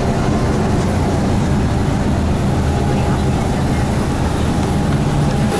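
Steady low rumble of a vehicle in motion or idling, with faint voices underneath.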